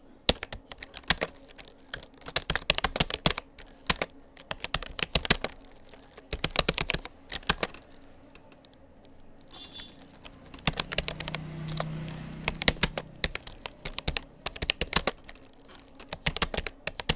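Fast touch-typing on a Rapoo computer keyboard: rapid key clicks in irregular runs, broken by short pauses.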